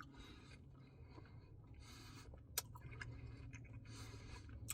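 Faint eating sounds: soft mouth noises and patches of hiss from a man eating an ice cream Blizzard, with a couple of sharp clicks.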